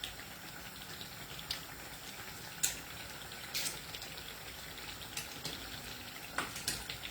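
Pot of cassava leaf sauce simmering: a faint steady hiss with a few scattered pops.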